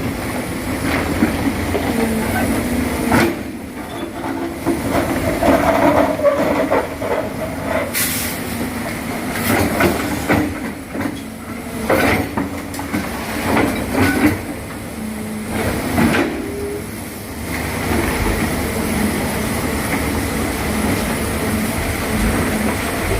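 Crawler excavator working: its diesel engine running under load with irregular metal clanks and knocks from the tracks and bucket.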